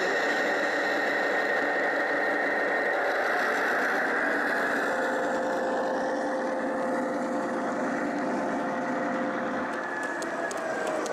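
Gauge 1 model train running on the layout: a steady mechanical hum whose pitch drops a little about halfway through. Near the end come a few sharp clicks, like wheels passing over rail joints.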